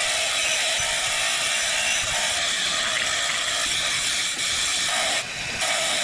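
Bench grinder running with a cast copper ingot pressed against its spinning wheel, a steady grinding hiss as the bar's oxidised surface is worked off. The contact eases off briefly about five seconds in, then resumes.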